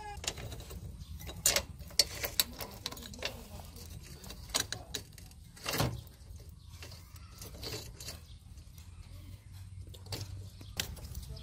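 Motorcycle roller drive chain being handled and fitted: irregular metallic clicks and clinks of the links and tools, over a low steady rumble.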